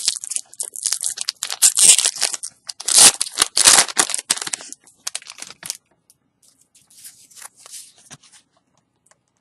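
A Pokémon booster pack's foil wrapper being torn open and crinkled. It is loudest in two bursts, about two seconds in and again between three and four seconds, then fades to faint, scattered crinkling.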